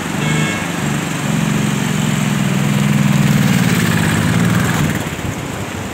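Motorcycle engine running close by, its note swelling a little toward the middle and then easing off, and fading about five seconds in.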